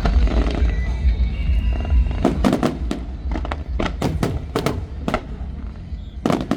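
Aerial fireworks going off: a quick, irregular string of sharp bangs that starts about two seconds in, over a steady low rumble.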